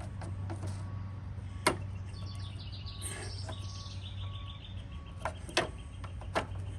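A few sharp clicks from a screwdriver prying at the plastic retaining tabs of a riding mower's ignition switch, over a steady low hum. A bird chirps a quick run of high notes about halfway through.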